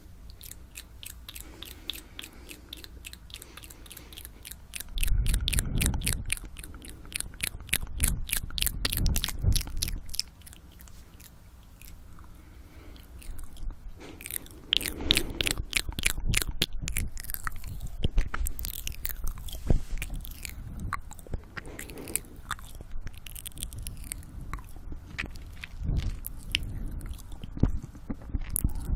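ASMR "ear eating" mouth sounds: rapid wet clicks and smacks of the lips and tongue right at the microphone, broken by spells of heavy breathing.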